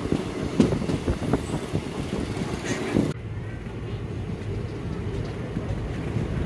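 Intercity express train running, heard from on board: a steady rumble and rattle with a few knocks. About three seconds in the sound cuts abruptly to a quieter, duller rumble.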